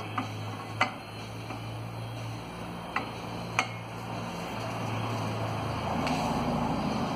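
Aluminium motorcycle crankcase half knocking against the steel arms of an engine stand as it is handled and fitted, four sharp metal clinks in the first four seconds.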